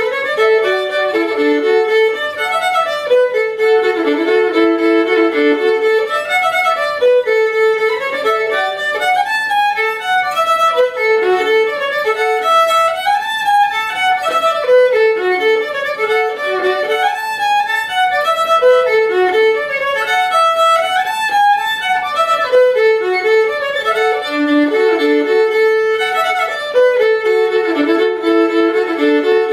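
Solo fiddle, bowed, playing an old-time fiddle tune in the key of D: a continuous run of notes in phrases that rise and fall and repeat.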